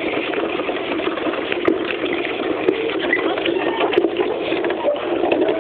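Wooden toy car rattling as it rolls over rough ground: a steady clatter of many small clicks.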